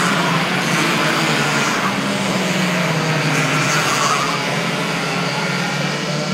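Several 60cc two-stroke racing kart engines buzzing at high revs as karts pass along the track, the pitch wavering as they go by.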